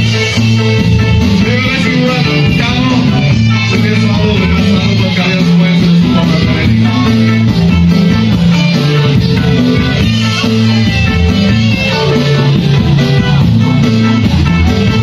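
Live band playing loud amplified music, with electric guitar and bass guitar carrying a steady low bass line.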